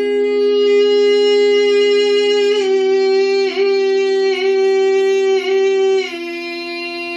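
A woman singing long, wordless held notes with rich overtones, her vowel shifting several times before she drops to a lower note near the end. Beneath her, a singing bowl holds one steady drone.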